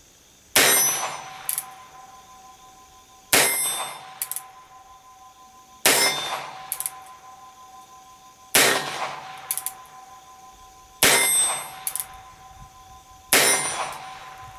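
Stainless Ruger Bearcat .22 LR single-action revolver fired six times, one shot every two and a half seconds or so, emptying its six-shot cylinder. Each shot rings out briefly and is followed about a second later by a pair of sharp clicks.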